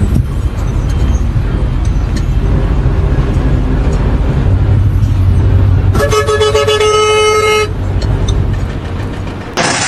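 A vehicle engine running with a steady low rumble, and a horn sounding one long blast about six seconds in. Just before the end the sound changes abruptly to a loud hiss.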